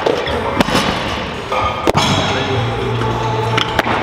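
Barbell and bumper plates thudding and clanking, with a sharp knock about two seconds in.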